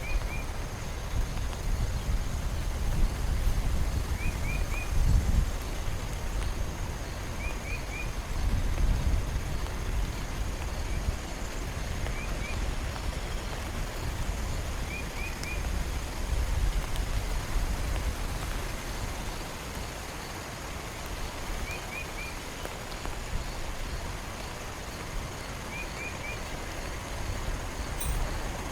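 Heavy rain falling steadily, with a low rumble that swells and fades. A faint chirp sounds in twos and threes every few seconds.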